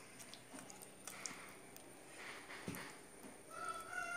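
Faint sticky squelches and small clicks of fingers rubbing thick masala paste onto sardines on a steel plate. Near the end, a rooster begins a long crow in the background.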